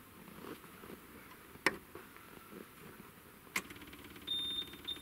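Two sharp knocks, then about three and a half seconds in, the Hitachi ZW40 wheel loader's diesel engine starts and runs steadily, with a high electronic beep chirping a few times near the end. The engine catches on this retry after its battery was charged, having failed to start that morning.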